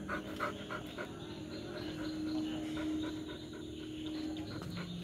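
German Shepherd dog panting quickly, about four or five breaths a second at first, then more softly. A steady low hum sounds in the background from about two seconds in.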